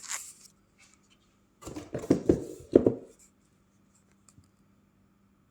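Parts of a raised pet feeder being handled and folded out: short scraping and rubbing sounds, busiest from about one and a half to three seconds in, then quiet apart from a faint hum.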